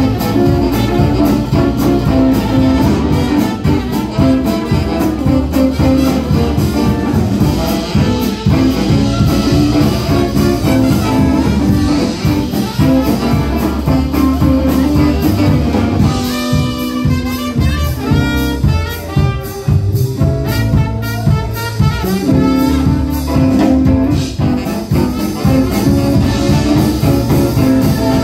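Live band playing an upbeat jazz number, with upright bass, drum kit and horns, an instrumental passage without singing. The bass-heavy groove drops back briefly about two-thirds of the way through, then comes back in.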